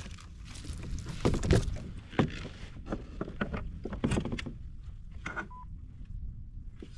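Knocks, taps and scrapes of a caught sea trout being handled and laid out for measuring on the kayak. A short electronic beep sounds about five and a half seconds in.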